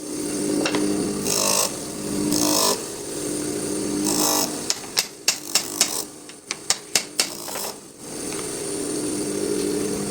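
Bench grinder running with a steady hum while a wood piece is pressed to the sanding wheel in three short rasping bursts. In the middle comes a quick run of sharp knocks, then the grinder runs on steadily.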